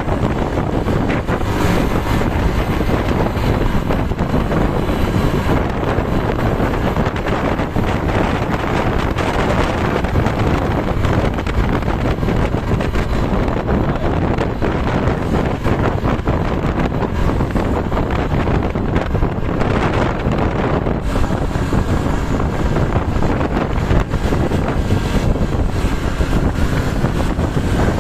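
Wind buffeting the microphone over a steady rumble of passing vehicles on the road.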